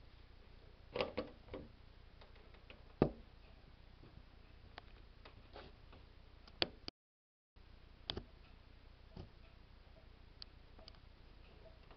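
A handful of sharp, unevenly spaced clicks and knocks over a faint steady hiss; the loudest comes about three seconds in. The sound cuts out completely for about half a second near the middle.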